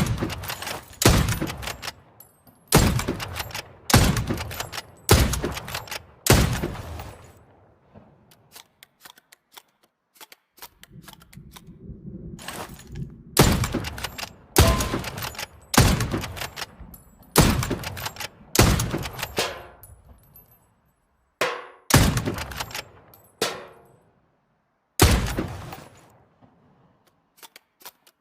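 Hunting rifle firing single shots in a long series, mostly about a second apart, each a sharp crack with a short echoing tail. A pause about a third of the way through holds light clicks and a low rumble, and the shots end with more light clicks.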